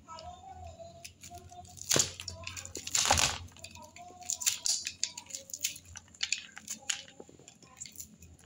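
Knife cutting kernels off a hard corn cob: a string of short scraping, tearing strokes, the two loudest about two and three seconds in.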